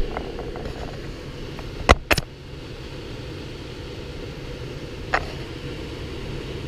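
Air handler blower driven by an X13 constant-torque motor, running at full speed on the fan setting with a steady rush of air, just after its motor control module was replaced. A pair of sharp knocks sounds about two seconds in and another near five seconds.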